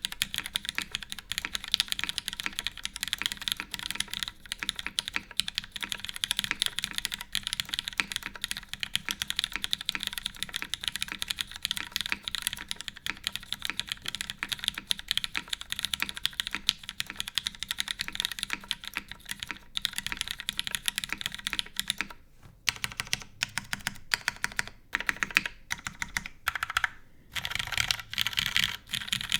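Fast typing on a custom mechanical keyboard with lubed, retooled Cherry MX Black linear switches, GMK keycaps and a full aluminium plate with no dampening foam: a dense run of keystroke clacks. Over the last third the keystrokes thin out to separate presses, stop briefly near the end, then pick up again.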